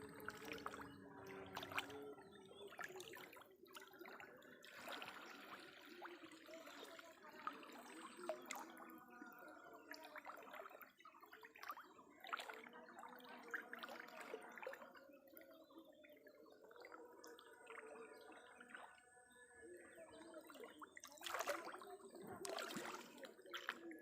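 Faint water sounds of trickling, dripping and small splashes, with distant voices murmuring underneath and a brief louder splashing about three-quarters of the way through.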